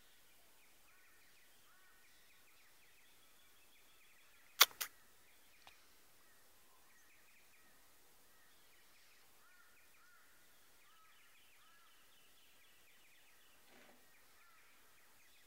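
Faint bird calls, many short chirps and warbles, with a sharp double click about four and a half seconds in and a lighter click a second later.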